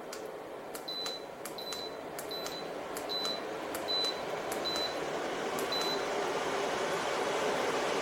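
Rowenta Eclipse 3-in-1 air purifier and fan heater's control panel beeping seven times: short high beeps with a click, about one every three-quarters of a second. Under them its fan rushes steadily and grows gradually louder.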